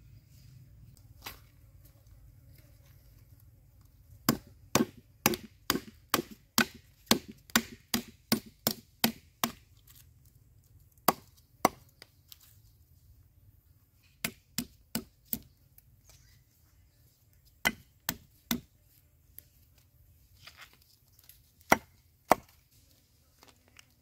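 Knife chopping lemongrass stalks on a thick wooden chopping block: sharp strokes, a steady run of about two a second for six seconds, then short groups of two to four.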